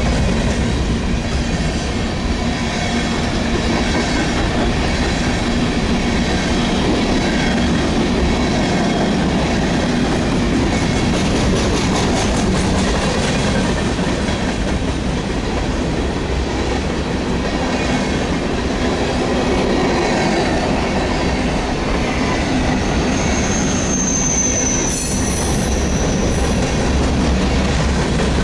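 Freight train's hopper cars rolling past, a steady rumble of steel wheels on rail clicking over the joints, with intermittent wheel squeal and a brief high squeal near the end.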